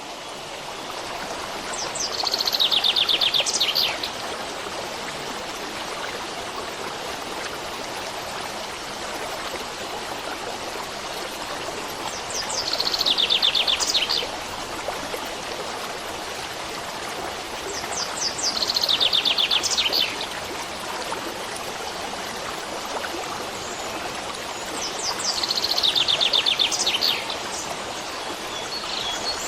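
A stream of running water rushing steadily, with a songbird singing a short, rapid trill of quickly repeated high notes four times, every six to ten seconds.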